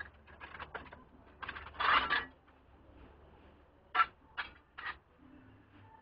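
Metal hand tools and engine parts clinking and rattling while the carburetors of a Honda GL1100 Goldwing are being taken off. There is a louder rattle about two seconds in, then three sharp metallic clicks a little under half a second apart.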